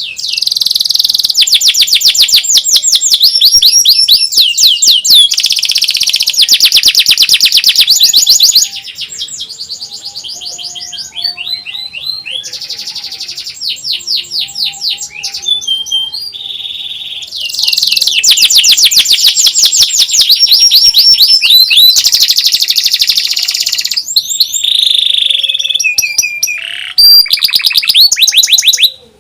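Domestic canary singing long, very fast trills (nyerilik) of rapidly repeated notes. The loud trilled phrases are broken by stretches of softer, varied notes. This is the kind of song played to get other canaries to answer and learn to sing.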